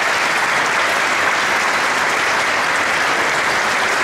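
Audience applauding steadily, dense sustained hand-clapping after a closing speech.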